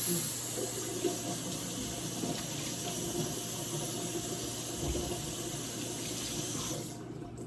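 Kitchen tap running into a sink as hands are washed under it, with a few faint knocks; the water is turned off about seven seconds in.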